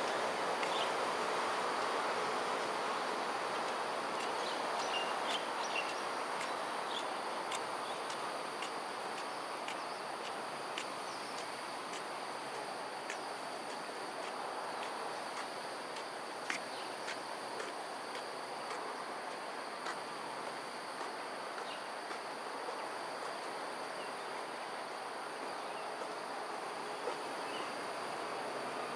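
Outdoor ambience of steady insect drone, two thin high whines held without a break over a broad rushing background noise that eases over the first several seconds. Scattered faint short chirps and clicks come through now and then.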